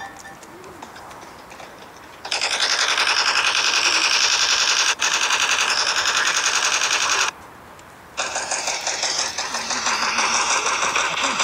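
Rapid automatic gunfire in two long bursts: one of about five seconds starting a couple of seconds in, then, after a pause of about a second, a second burst that runs on.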